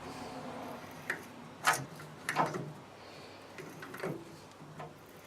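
Workshop tools and metal parts being handled on a bench: four sharp clicks and knocks, the loudest about two seconds in.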